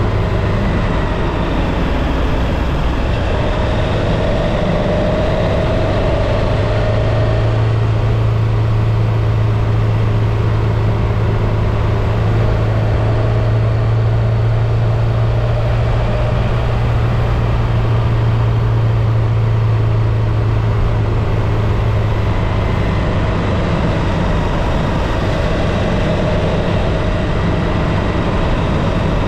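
Motorcycle engine running at a steady, even speed, with wind rushing past.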